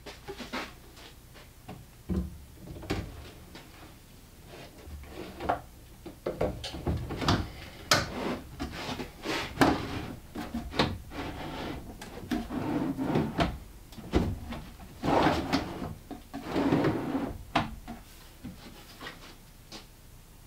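A wooden drawer box sliding on metal drawer runners in a cabinet carcass, pushed in and pulled back several times: repeated knocks and clicks with stretches of sliding rub as it is fitted onto the runners.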